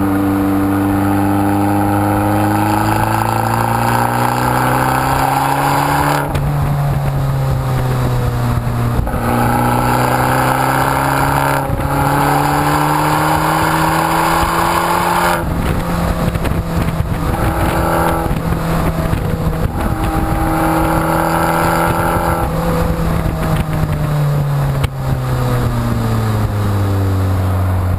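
Abarth 695 Biposto's turbocharged 1.4-litre four-cylinder through its Akrapovic exhaust, heard right at the tailpipe while driving. The exhaust note climbs in pitch through the gears, dropping sharply at each of about four upshifts, then holds steady and falls away as the car slows near the end.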